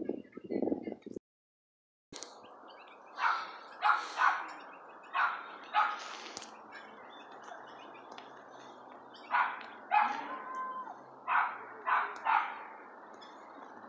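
Short, sharp barking calls from an animal, repeated every second or so and often two in quick succession, with a brief whistle about ten seconds in.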